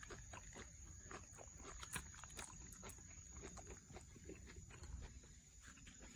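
Shiba Inu chewing cabbage: a quick, irregular run of faint crisp crunches.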